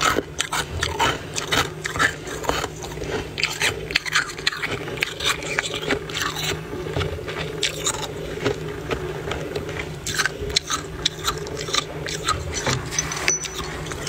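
Thick freezer frost being crunched and scraped: an irregular run of many short, squeaky crunches, over a steady low hum.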